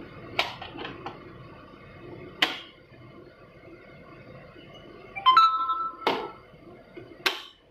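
Hard plastic battery case halves knocked and clicked as they are handled: a cluster of light clicks near the start, then single sharp knocks. About five seconds in, a brief electronic beep that steps up in pitch is the loudest sound.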